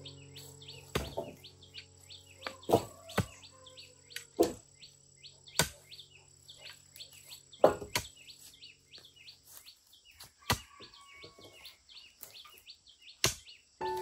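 A hoe chopping into clumpy earth in about ten sharp, irregularly spaced strikes, while birds chirp rapidly and continuously in the background.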